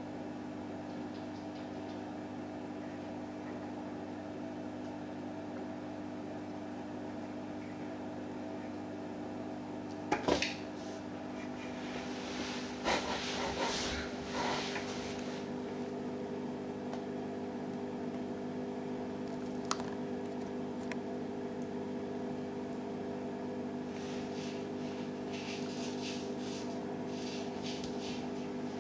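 Steady hum of a running appliance, made of a few even tones. A sharp knock comes about ten seconds in, a few duller knocks and rustles follow shortly after, there is a single click around twenty seconds, and there is light rustling near the end.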